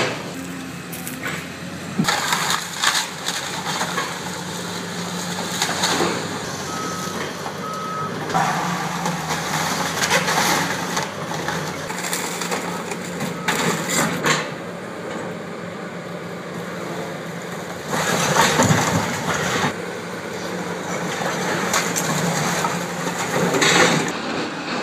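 Caterpillar tracked excavator's diesel engine running steadily while its bucket tears down a brick building, with repeated loud crashes and crunches of breaking brick, wood and debris. Two short beeps sound about seven seconds in.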